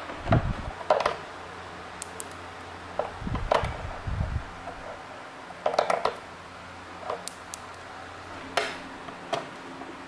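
Hand tools and metal parts clinking and knocking as they are handled, in scattered single strikes. A few dull thumps come in the first half.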